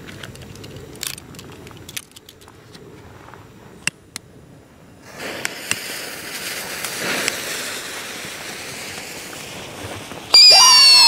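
Two Screamer King whistling fountain fireworks: a hissing, crackling burning fuse, then near the end both fire at once with a loud, shrill whistling scream of several wavering, falling pitches.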